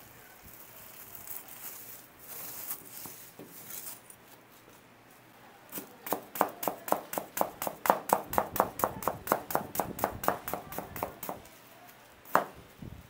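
Knife chopping rhythmically on a cutting board, about four quick cuts a second for some five seconds, with one last cut near the end, typical of slicing a set slab of oranda gangjeong into pieces. Faint rustling comes before the chopping.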